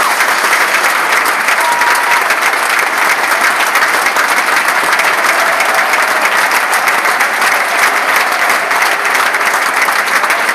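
Football crowd applauding: many hands clapping, dense and steady.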